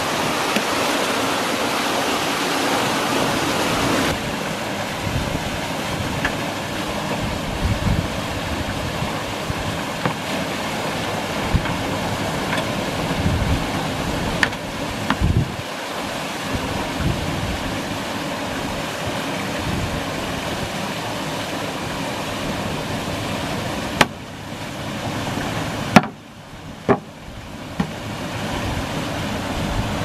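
Steady rush of water pouring through a reservoir outlet flume into a corrugated culvert pipe, the gravity-fed flow that floods the cranberry beds. A few sharp knocks sound over it, the loudest near the end.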